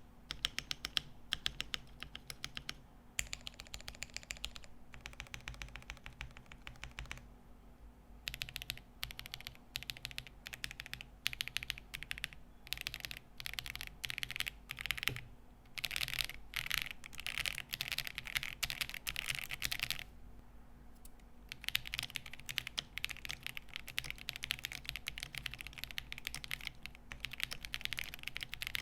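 Typing on a Rebel60 v2 stacked-acrylic, gasket-mounted mechanical keyboard with lubed KTT Peach linear switches on a polycarbonate plate: fast runs of keystrokes with brief pauses, a slightly clacky sound.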